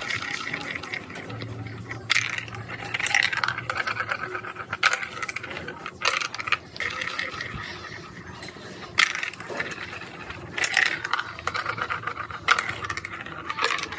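Marbles rattling and clicking through a plastic building-block marble run: a steady rolling clatter with sharp knocks every second or two.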